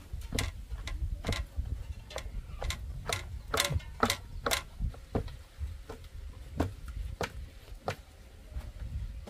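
Irregular sharp clicks and taps, about two a second, thickest and loudest around the middle, over a steady low rumble.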